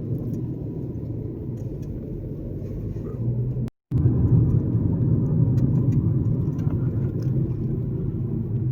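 Steady engine and road rumble heard from inside a moving car, low and even throughout, cutting out for a moment just under four seconds in.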